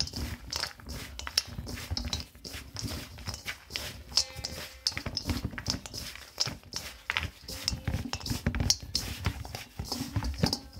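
Hands kneading and squeezing a crumbly cookie dough with almonds in a stainless steel mixing bowl: irregular squishing and soft knocks, many close together.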